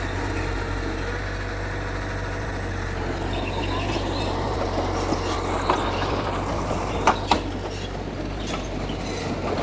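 Bulldozer's diesel engine running steadily, with a few sharp knocks in the second half, two of them in quick succession about seven seconds in.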